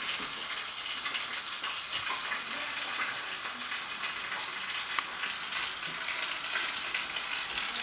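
Crushed onions sizzling as they fry in hot oil in a frying pan, a steady fine crackle, with one sharp click about five seconds in.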